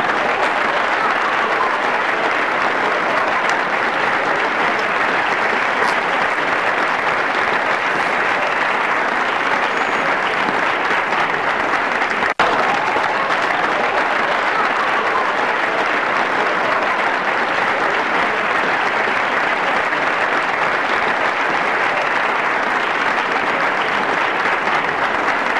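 Steady, dense applause-like clapping noise that holds unbroken, with a brief sharp dropout about halfway through.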